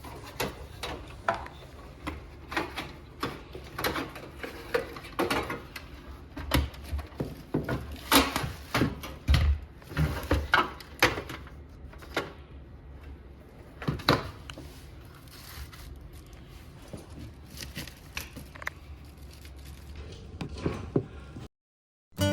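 Irregular clicks, taps and knocks of hands-on work, handling hard parts, one to several a second over a low steady hum, stopping abruptly about a second before the end.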